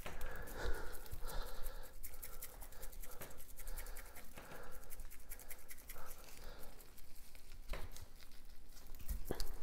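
Spice shaker being shaken over a raw pork shoulder: dense rattling ticks of the rub falling on the meat, mixed with scratchy handling, and a couple of sharper knocks near the end.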